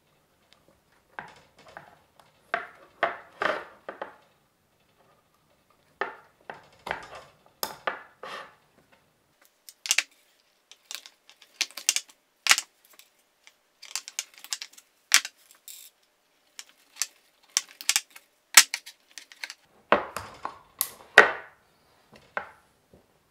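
Irregular metallic clicks, clinks and knocks as BMW M52 pistons on M50 connecting rods are handled and set down one after another on the workbench, with the heaviest knocks about twenty seconds in.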